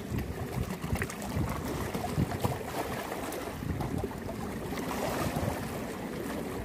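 Small sea waves lapping and splashing against shoreline rocks, with wind buffeting the microphone in an uneven low rumble.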